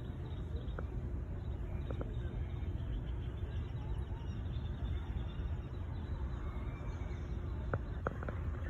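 Steady outdoor background noise, mostly a low rumble, with a few faint short ticks: a couple near the start and several near the end.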